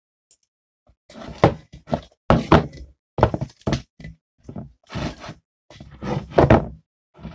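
Sticky homemade slime being kneaded, stretched and slapped by hand: a run of irregular wet slaps and squelches that starts about a second in.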